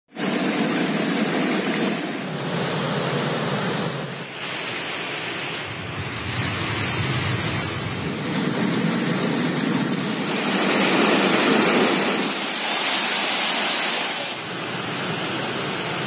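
Waterfall and white water rushing and splashing over rocks, a steady roar whose loudness and tone shift every couple of seconds.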